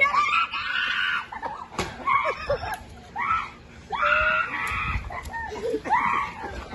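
Children screaming and shrieking in play, a string of high-pitched shrieks one after another.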